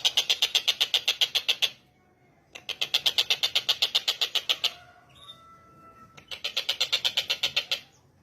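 Tengkek buto bird calling in fast rattling trills of about ten notes a second, in three bursts of roughly two seconds separated by short pauses. Fainter chirps from another bird come in the pause after the second burst.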